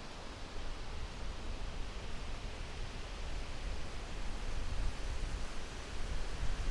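Wind gusting through forest trees in a steady rush, swelling about half a second in, with a low rumble underneath that rises and falls with the gusts.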